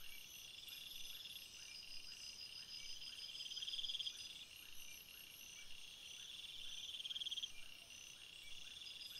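Faint insect chorus: a high trill that swells and stops three times, over soft chirps repeating about two to three times a second.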